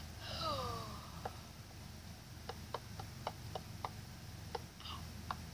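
Knife point tapping on a wooden table between the fingers of a spread hand in the knife game: about ten sharp, uneven taps, coming faster in the middle, heard through a phone's speaker. A short falling, whine-like sound comes just before the taps start.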